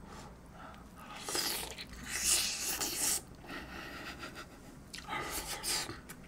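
Close-miked eating sounds of someone biting and chewing tender braised beef short rib meat off the bone: three short bursts of mouth noise, about a second each, with quieter stretches between.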